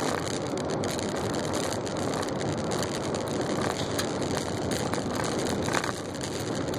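A 4x4 driving slowly on a gravel track: steady tyre-on-gravel and engine noise heard from inside the vehicle, with scattered sharp clicks and knocks.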